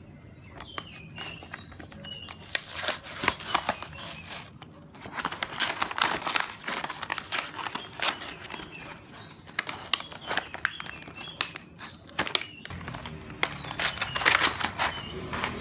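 Clear plastic blister packaging crinkling and paper backing tearing as a toy figure set is opened by hand, in a long run of irregular sharp crackles.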